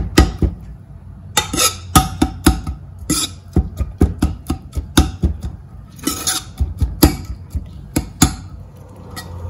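A metal spoon knocking and scraping against the inside of a pressure cooker pot while mashing cooked dal: irregular clacks, about two or three a second.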